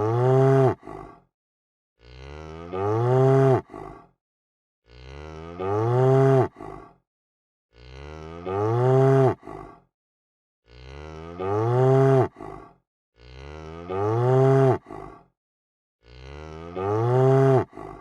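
A cow mooing the same moo over and over, about seven times, one every two and a half to three seconds, with silence between. Each moo rises and then drops sharply in pitch at its end, followed by a short grunt. The calls look identical, as in a looped recording.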